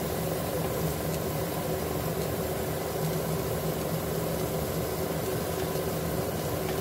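Steady hum of a running kitchen appliance motor, even and unchanging.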